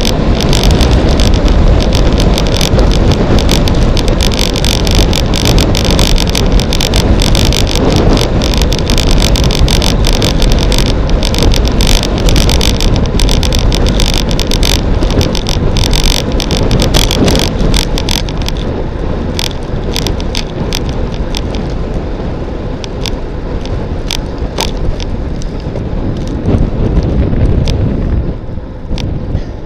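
Loud wind rush over the microphone of a camera on a road bike descending at about 50 km/h, with many sharp clicks and rattles. It grows quieter as the bike slows toward the end.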